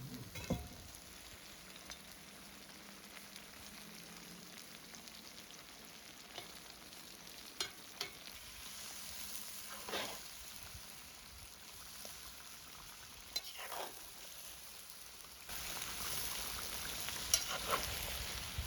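Carrots, onions and meat frying in hot oil in a cast iron kazan: a steady sizzle, with a few scrapes and knocks from stirring. The sizzle grows louder about three-quarters of the way through.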